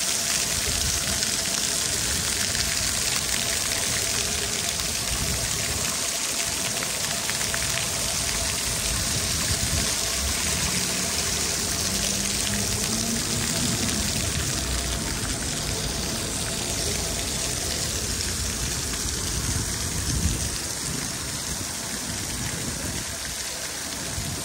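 Water jets of a ground-level paving fountain spurting up from floor grates and splashing back onto wet paving stones, a steady splashing hiss that grows a little fainter near the end.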